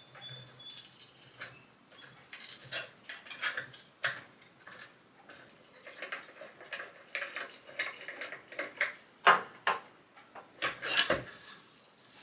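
Glass light globe and metal fixture parts of a ceiling fan clinking and tapping as the globe is taken off, with irregular sharp clicks, the loudest near the end.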